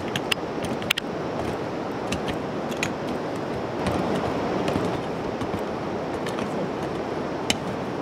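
Hand hoes chopping into and scraping dry soil, with several sharp knocks of the blades striking the ground, the strongest about a second in. A steady rushing noise runs under it throughout.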